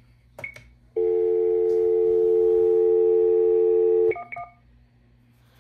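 Telephone dial tone on a line running through a Linksys VoIP adapter, heard from a business phone. A click comes first, then the tone holds steady for about three seconds and is cut off by two short touch-tone key beeps.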